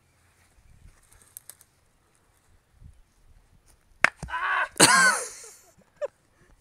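A bat cracks against a tossed rock about four seconds in, followed at once by a person's loud shout lasting about a second and a half. Faint clicks of the bat and rock being handled come before it.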